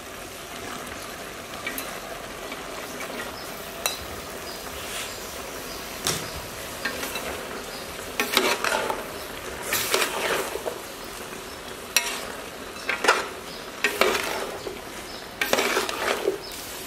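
Meat and vegetables sizzling in a large metal pot, then from about halfway through a ladle scraping and clattering against the pot in repeated stirring strokes.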